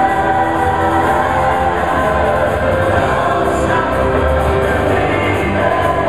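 Live band and a large group of singers performing a song together, many voices singing at once over the band.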